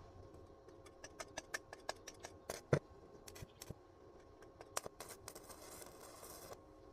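Stick (arc) welding: faint, irregular crackling and spitting as the electrode arc strikes and sputters, with a steadier hiss for a moment near the end.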